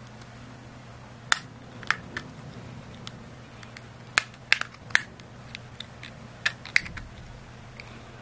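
Sharp plastic clicks and snaps as the outer frame of a Bpro 5 action camera is prised off by hand: about eight loud clicks in irregular groups, with fainter ticks between them.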